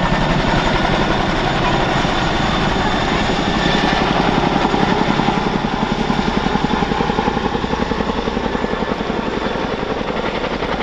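Boeing CH-47F Chinook tandem-rotor helicopter flying low overhead: its two rotors make a loud, steady, fast, even beat of blade thumps under a thin high whine.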